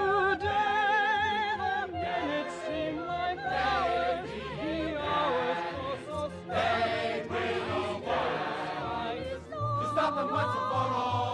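Orchestral show music with several voices singing overlapping lines at once: a male soloist's line with vibrato set against a male gang chorus.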